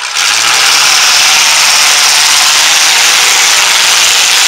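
Demolition derby truck engines at full throttle, a very loud rasping racket that starts suddenly and holds steady.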